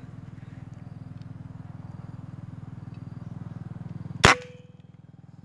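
A single sharp shot from a scoped air rifle about four seconds in, with a brief ring after it, over a steady low hum.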